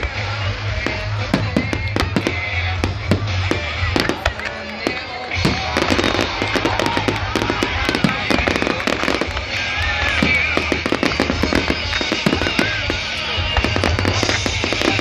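Fireworks display: aerial shells bursting in rapid, overlapping bangs and crackles, getting denser about five seconds in, with music playing underneath.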